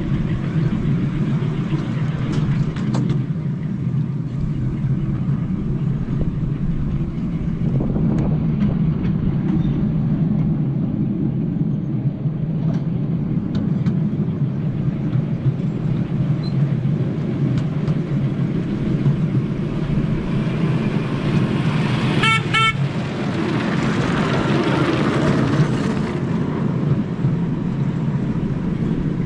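Miniature railway train running with a steady low rumble. About 22 seconds in it gives one short, high toot, followed by a rush of noise for a few seconds.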